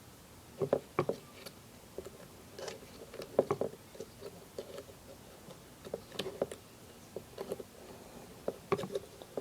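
Irregular clusters of small clicks and light knocks as the parts of a P-23 BB pistol are handled and pushed into place during reassembly.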